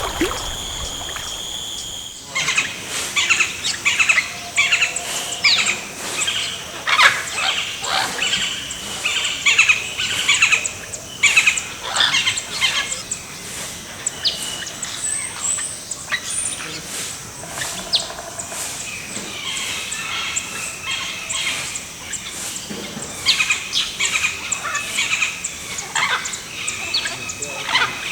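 A dense chorus of many birds calling and chirping, short overlapping calls one after another. It starts abruptly about two seconds in, replacing a steady high-pitched drone.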